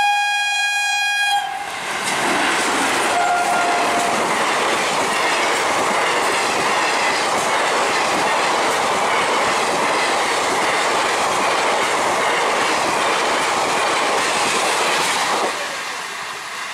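An electric locomotive's horn sounding a held, multi-tone blast that stops about a second in, then an express train's coaches rushing past close by at speed, a loud steady rattle and clatter of wheels on the rails that drops away near the end.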